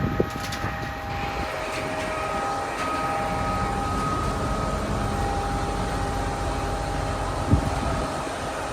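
A steady mechanical drone with several high whining tones held above it, with a single short knock near the end.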